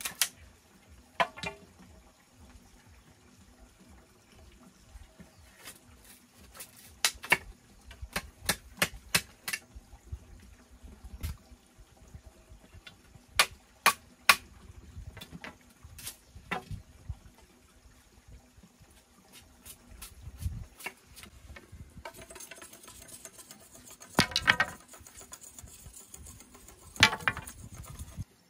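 Irregular sharp knocks and taps of bamboo being worked by hand, with a rougher rustling, scraping stretch and two louder strokes in the last few seconds.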